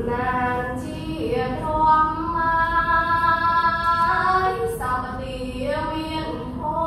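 A girl's solo voice reciting Khmer verse in a sung, chanted melody, holding long, slightly wavering notes with short breaks between phrases, unaccompanied.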